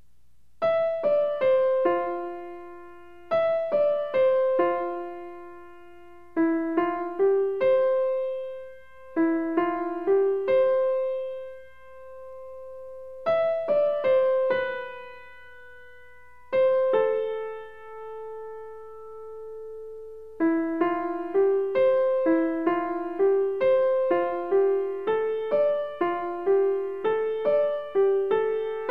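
Background music: a gentle piano melody of single struck notes, each fading away, with one long held note past the middle and quicker notes in the last third.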